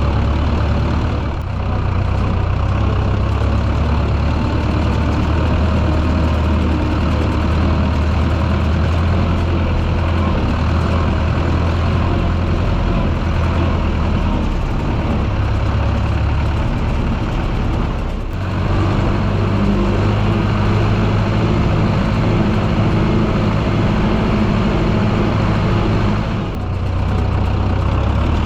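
Zetor tractor's diesel engine running steadily with a strong low note, the sound briefly dropping three times, about a second and a half in, past the middle, and near the end.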